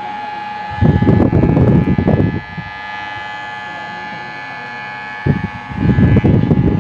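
Electric hair clipper running with a steady high hum. Two louder rough rushes of noise break over it, one about a second in and lasting a second and a half, another from about five seconds in to the end.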